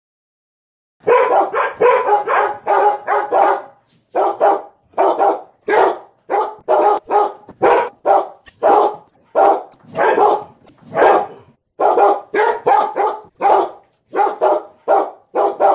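Dogs barking excitedly, starting suddenly about a second in and going on in quick barks, two or three a second, with brief pauses: a timer's alarm sounding as the countdown reaches zero.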